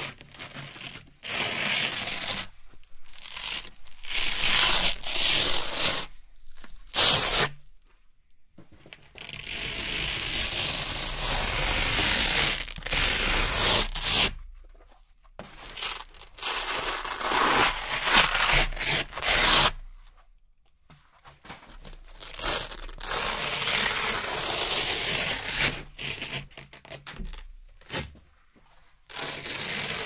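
Velcro hook-and-loop strips being peeled apart by hand: a series of ripping tears, some short and some drawn out over several seconds, with brief pauses between pulls.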